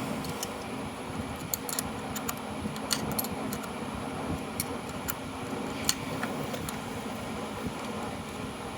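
Electric fan running steadily, with about a dozen light, irregular clicks and taps of hand tools working on a Delco starter motor.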